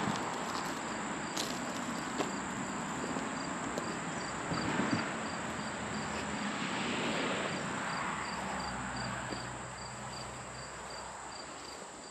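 Insects chirping outdoors: a high, regular chirp about three times a second over a steady high drone and an outdoor background hiss.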